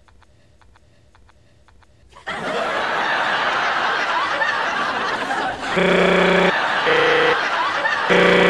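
Quiet for about two seconds, then a studio audience bursts into loud, sustained laughter. Near the end a blaring horn-like tone cuts in over it three times, briefly each time.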